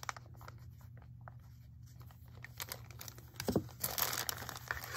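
Small plastic bag crinkling and rustling as it is handled, sparse at first and busier in the second half.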